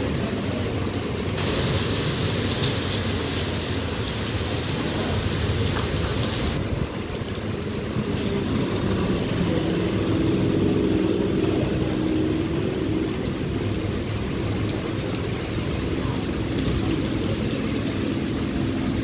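Electric multiple-unit local train rolling along the platform: a steady low rumble of coaches and wheels on rail, with rain falling. A hiss comes in a second or so in and stops about five seconds later, and a humming tone rises over the rumble from about ten seconds.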